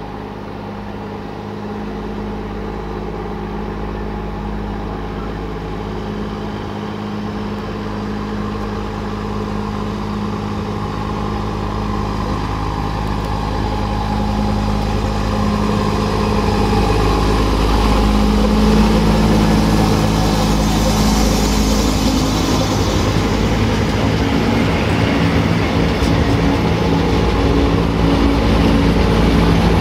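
Malaxa diesel railcar's engine running steadily as the railcar approaches and draws alongside, growing louder throughout, its engine note shifting partway through.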